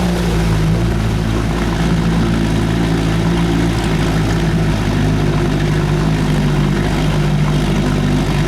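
1970 Evinrude 25 hp Sportster two-cylinder two-stroke outboard running at a steady, unchanging speed. Its exhaust baffle gasket leaks badly, according to the owner.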